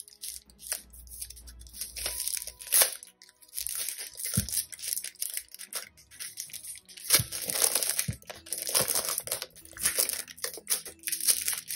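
Packaging crinkling and tearing as a sticker book is unwrapped, in irregular rustles with a few sharper crackles.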